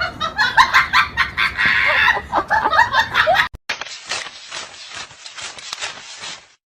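Domestic fowl calling in a dense run of short, quick calls that cut off abruptly about three and a half seconds in. A quieter stretch of rapid, irregular clicks and scratchy noise follows, stopping shortly before the end.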